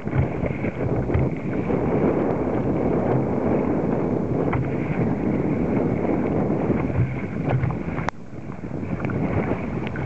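Wind buffeting the microphone over water rushing and sloshing around a sit-on-top kayak pitching through choppy waves. A single sharp knock comes about eight seconds in.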